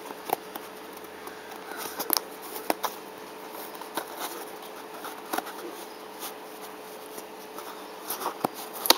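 Scissors slitting the packing tape along a cardboard box's seam: irregular clicks and scrapes of blade and tape against cardboard.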